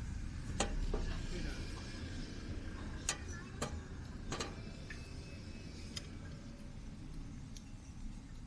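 Campfire crackling: irregular sharp pops and snaps, one every second or two, over a low steady rumble.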